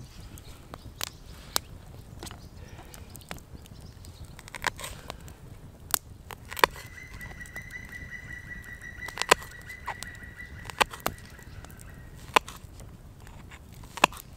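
Scattered sharp clicks and knocks over a low steady rumble. A steady high whistling tone holds for about six seconds in the middle.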